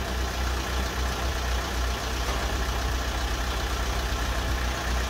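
VW Crafter's newly fitted replacement 2.0 TDI four-cylinder turbodiesel engine idling steadily with the bonnet open.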